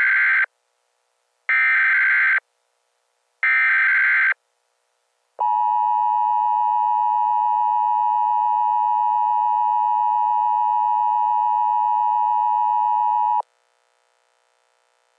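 Emergency Alert System tones: three loud screeching SAME data bursts about a second long each, then the steady two-tone EAS attention signal held for about eight seconds before cutting off abruptly.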